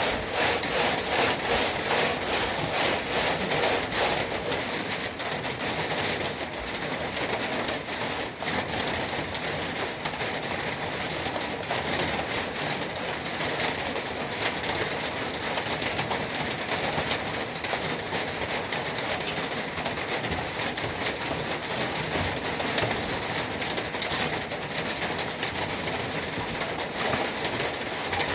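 Sanding on a truck toolbox, abrasive rubbing in quick rhythmic back-and-forth strokes for the first few seconds, then denser, steadier rubbing.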